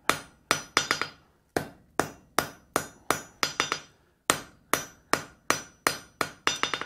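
Blacksmith's hand hammer striking a red-hot steel bar on the anvil face, about three blows a second with a short pause about four seconds in, each blow leaving a brief metallic ring. The hot bar is being straightened at its bend and its corner squared up.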